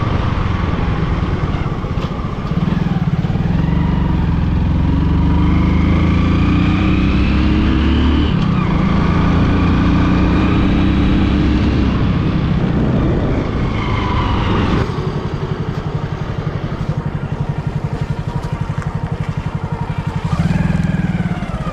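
Hero Super Splendor's single-cylinder four-stroke motorcycle engine running under way. Its pitch climbs, drops sharply at a gear change about eight seconds in, climbs again, then eases off to a lower, pulsing beat from about fifteen seconds in.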